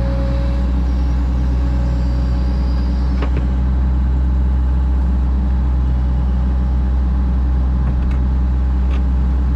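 Excavator engine running steadily with a constant low hum, with a few faint light knocks.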